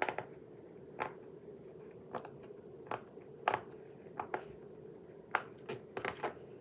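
Silicone pop-it fidget toy being popped one bubble at a time: a string of short, soft pops at uneven intervals, about one or two a second.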